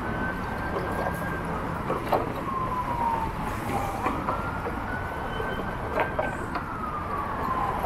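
An emergency vehicle's siren in a slow wail: its pitch climbs, holds, and glides down again, going through about two rise-and-fall cycles of roughly four seconds each. Steady city traffic noise and a few sharp clicks lie underneath.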